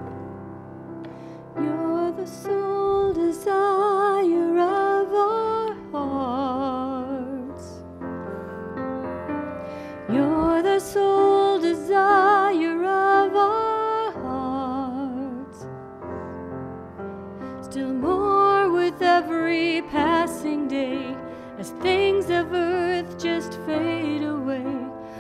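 A solo singer with vibrato, accompanied by keyboard, singing in phrases of a few seconds.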